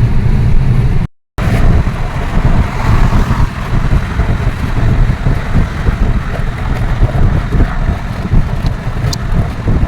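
Low, uneven rumble of a moving vehicle with wind buffeting the microphone. The sound cuts out completely for a moment about a second in.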